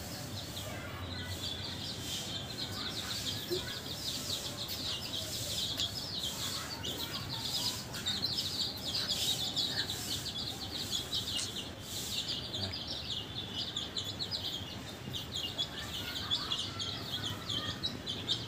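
A flock of young chicks peeping, many short high-pitched cheeps overlapping without a break.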